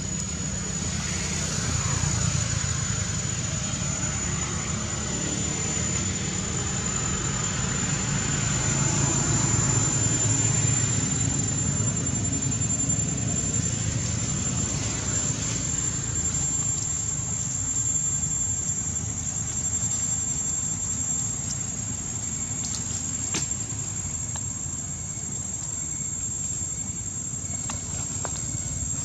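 Forest ambience: a steady, high-pitched insect drone over a low rumble, with a few faint clicks near the end.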